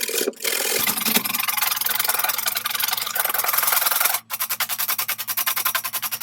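Egg whites being whipped in a large bowl: rapid, even scraping strokes of the whisk against the bowl, with a brief pause about four seconds in.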